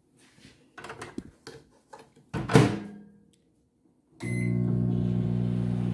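Microwave oven door shut with a thunk, then a brief beep as Start is pressed, and the microwave runs with a steady low electrical hum, heating a papad.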